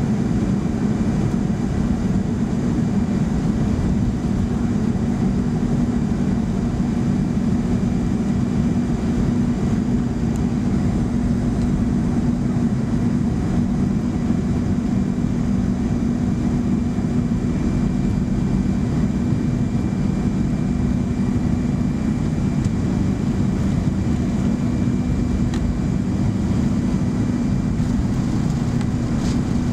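Boeing 737-200's Pratt & Whitney JT8D turbofan engines running at a steady pitch, heard inside the cabin as a dense, even rumble and hum.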